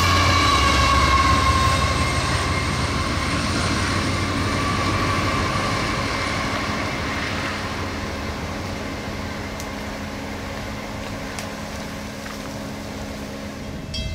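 Double-stack intermodal freight train rolling by on jointed track, its wheels ringing with squeal tones that slowly drop in pitch. The sound fades as the train draws away, and a diesel locomotive's steady engine drone comes in about halfway through.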